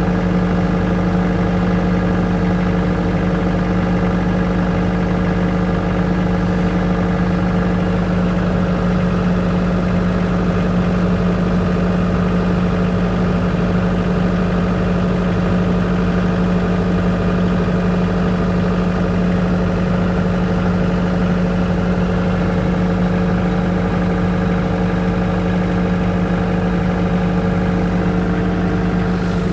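Engine-driven generator running at a steady speed, an even hum that holds one pitch throughout.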